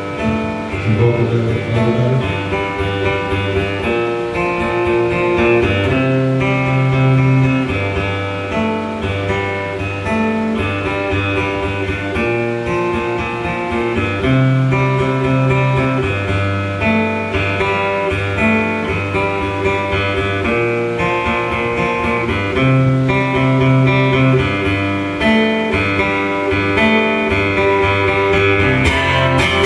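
A single acoustic guitar strummed hard, playing chord riffs that change every second or so. The strumming grows sharper and busier near the end.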